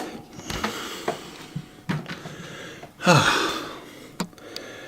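A portable fridge freezer's lid catch being released and the lid handled: a few sharp clicks and knocks, with a short rushing sound about three seconds in.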